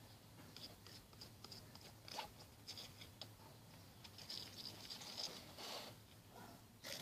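Faint, scattered light clicks and scratches of salt being added to and worked into a shampoo slime mixture, busiest about four to six seconds in.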